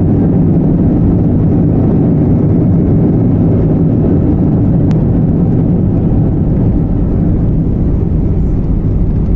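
Steady, loud low rumble of an airliner's engines and airflow, with a few even low hums running through it.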